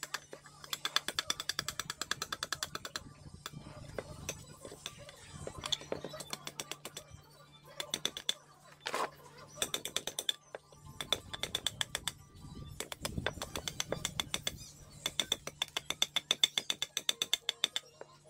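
Serrated knife blade scraping fast across a curved piece of dry wood, in runs of quick rasping strokes a couple of seconds long with short pauses between.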